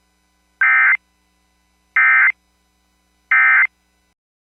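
Emergency Alert System SAME end-of-message data bursts: three short, identical warbling digital bursts, each about a third of a second long and spaced about 1.4 s apart. They signal the end of the alert.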